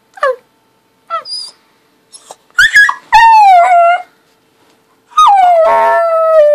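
A happy puppy howling: two short yelps falling in pitch, then two long howls that each slide down from a high start and level off, the second lifting in pitch again near the end.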